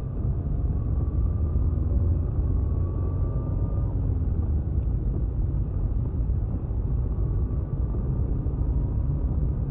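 Steady low rumble of a car's engine and road noise heard from inside the moving car, with a faint whine that rises slightly in pitch over the first few seconds.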